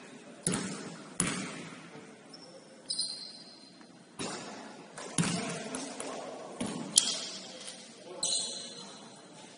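A basketball bouncing on a gym court during play, several irregularly spaced bounces that echo in the hall, the sharpest about seven seconds in. Short high sneaker squeaks come about three seconds in and again near the end.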